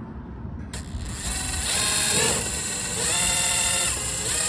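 Compact cordless right-angle drill running with a small bit, drilling a pilot hole at a punched mark in a car's front fender area. The motor whine starts about a second in and surges twice.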